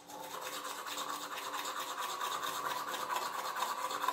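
Manual toothbrush scrubbing teeth: quick, steady back-and-forth brushing strokes.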